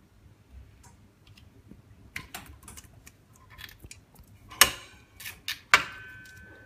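Small hard parts and tools being handled on a workbench: scattered light clicks and taps, then two sharp knocks about a second apart, the second ringing briefly.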